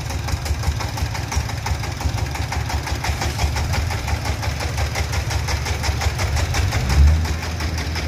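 Single-cylinder diesel engine of a three-wheeled dump tractor idling with an even, rapid pulsing beat. A louder low drone comes in near the end.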